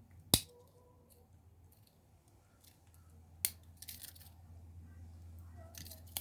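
Victorinox Hiker Swiss Army knife's slip-joint tools snapping against the backspring as they are closed and opened: one sharp click about a third of a second in, another about three and a half seconds in, with softer small clicks and handling noise between them.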